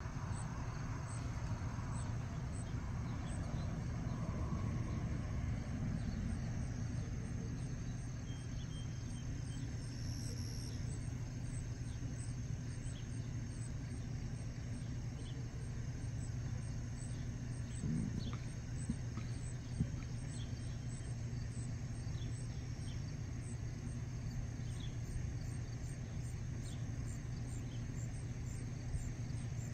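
Dusk outdoor ambience: a steady low rumble, with insects chirping faintly high above it in an even rhythm. A soft knock comes about two-thirds of the way through.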